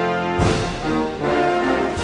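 Orchestral background music with brass holding sustained chords, and a sudden crash about half a second in.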